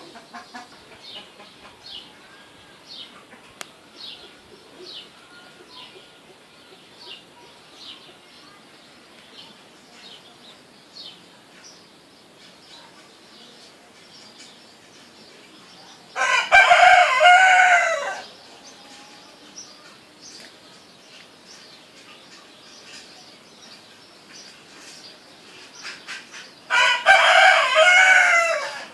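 A rooster crowing twice, each crow about two seconds long, with small birds chirping faintly and repeatedly in between.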